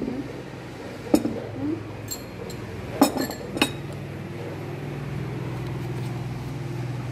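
A metal spoon clinking against a ceramic rice bowl, about four sharp clinks, over a low steady hum that grows louder in the second half.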